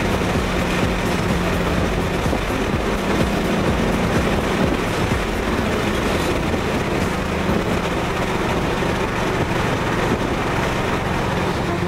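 Ford Mustang GT's V8 cruising at a steady speed, heard from inside the cabin as an even engine drone mixed with tyre and road noise.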